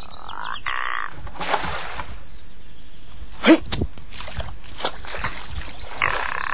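Frogs croaking, with one drawn-out rising call just after the start and another near the end. A brief, louder sharp sound comes about three and a half seconds in.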